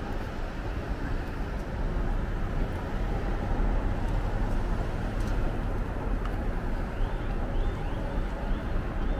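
Steady city street traffic noise: a constant rumble of car engines and tyres at an intersection. A few faint high chirps come in near the end.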